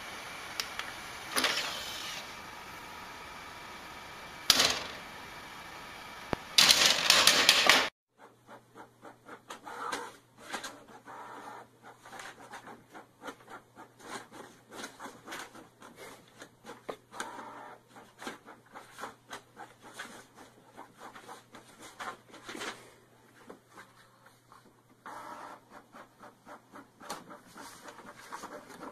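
For about eight seconds, a steady hiss with a few loud rustles and knocks, the last a longer burst. Then a Canon inkjet printer printing: a rapid run of clicks and whirring from the print head and paper feed over a low steady hum.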